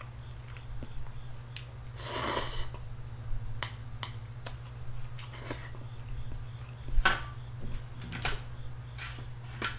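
Eating sounds from a bowl of ramyeon: a noisy slurp of noodles about two seconds in, then sips of broth and chewing. Short clicks of wooden chopsticks against the bowl and foil tray come throughout, the sharpest about seven seconds in, over a low steady hum.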